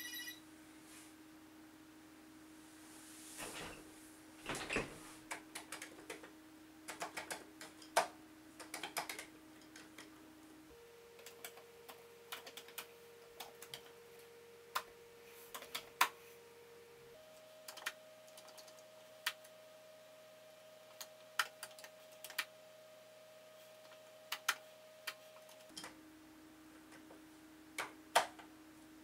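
Keystrokes on a Commodore PET keyboard, irregular clicks as commands are typed in short runs. A faint steady hum lies underneath and shifts in pitch twice. A brief hiss and a few thumps come about four seconds in.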